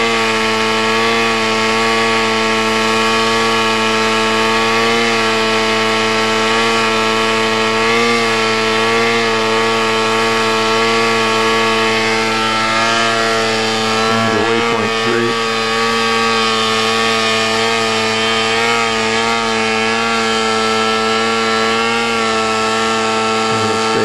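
V-Bat 3.0 RC tail-sitter VTOL model hovering, its motor and propeller running at a steady pitch that wavers slightly a little past the middle as it holds position.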